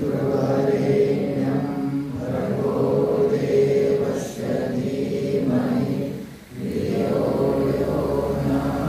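Voices chanting a Hindu devotional mantra in unison, in long held phrases with a brief break about six and a half seconds in.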